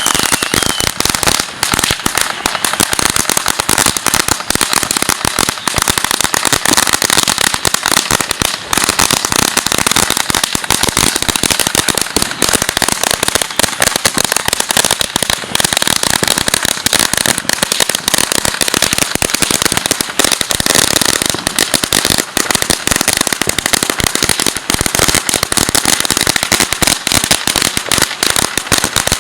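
A long string of firecrackers going off in a rapid, unbroken crackle of sharp pops, many a second.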